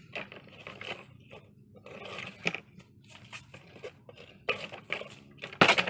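Irregular scraping, crunching and clicking of objects being handled, in short uneven bursts, with the loudest clatter near the end.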